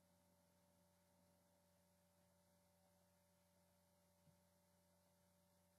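Near silence: a faint steady hum of room tone, with one faint tick about four seconds in.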